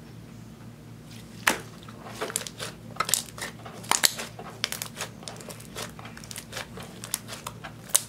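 Pearly clear slime mixed with eyeshadow being squeezed and kneaded by hand: a quick, irregular run of sharp wet clicks and pops from air squeezed out of the slime, starting about a second and a half in, over a faint steady low hum.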